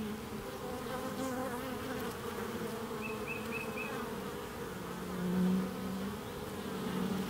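Honeybees buzzing at the hive entrance, a steady hum that swells louder for a moment about five seconds in.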